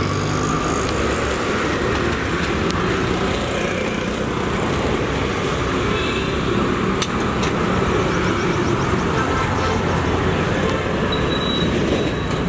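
Steady street traffic noise: a continuous wash of passing vehicles and engines.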